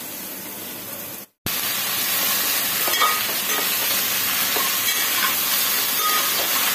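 Mixed vegetables frying in oil in an aluminium pot: a muffled sizzle under the lid, then, after the sound cuts out briefly about a second and a half in, a louder steady sizzle with the scrape of a spatula stirring the pieces.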